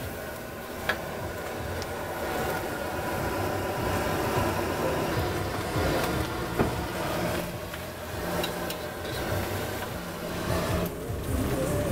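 Stir-frying on a gas stove: a steady low roar from the burners under a wok of fried rice and a pan of frying tempeh, with two sharp clinks of the metal spatula against the wok, about a second in and a little past halfway.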